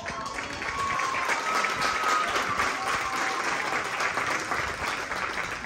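Audience applauding at the end of a marching band's show, with a few cheers early on; the clapping dies away near the end.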